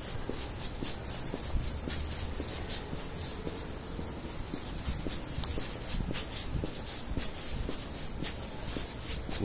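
Footsteps scuffing on wet concrete together with rubbing and handling noise from a phone carried while walking, a run of short scratchy ticks over a low rumble.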